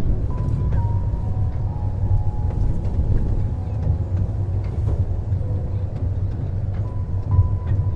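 A small park passenger train running along its track: a steady low rumble with scattered light clicks from the wheels and carriages.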